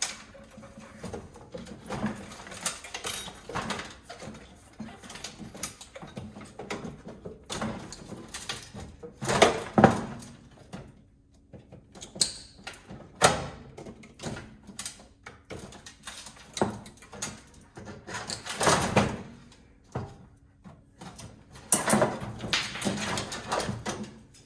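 Irregular clicks, knocks and scrapes of hand tools and loose metal and plastic parts being handled as an instant gas water heater is taken apart, with louder clatters about ten seconds in and again near the end.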